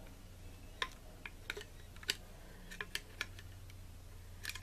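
Light, irregular metallic clicks, about eight of them, as small steel needle rollers are pushed into place in the pilot bearing bore of a T-90 transmission's main gear.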